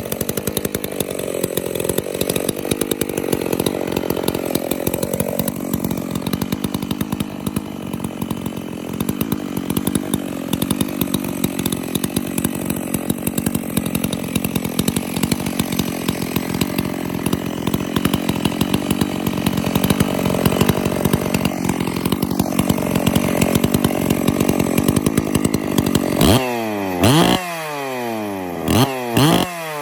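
Makita 6401 two-stroke chainsaw, fitted with a Stihl 046 muffler and a West Coast Saw muffler cover, running with no bar or chain fitted. It runs steadily for most of the time, then is revved hard several times near the end, with the pitch falling away after each blip. The new cover is not yet bolted at the bottom and flaps a little.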